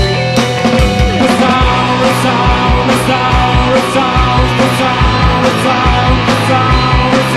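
A rock band playing live in an instrumental passage of a dark gothic rock song. Held guitar and bass notes ride over a steady drum beat with regular cymbal hits.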